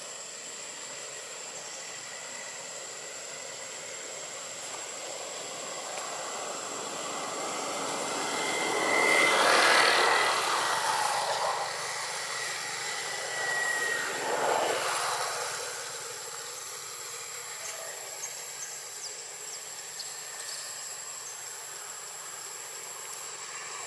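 A vehicle passing by: a rush of noise that builds over several seconds, peaks about ten seconds in, and fades, with a smaller second swell a few seconds later.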